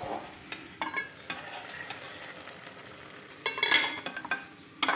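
Food sizzling as it fries in a pan on a gas stove. Metal pot lid and cookware clatter over it a few times, loudest just before four seconds in.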